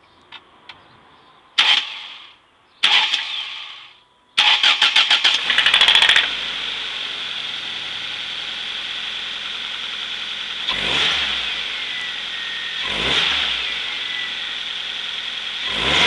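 1998 Mazda 626's 2.0-litre FS four-cylinder engine being started: two short bursts, then the starter cranks for about two seconds before the engine catches and settles into steady running, with three brief revs, the last near the end. The engine has a knock that the owner traced to worn big-end bearings.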